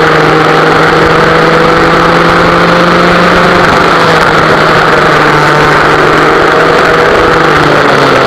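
Vintage West Bend two-stroke kart engine running at speed, heard onboard the rear-engine kart. The revs rise a little early on, then sag gently through the second half.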